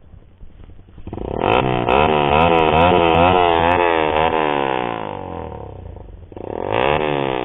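Motorcycle engine revved through an open Daeng pipe muffler with no baffle. About a second in it revs up, the pitch wavering up and down over several seconds of throttle blips before it settles back, then there is another short rev near the end.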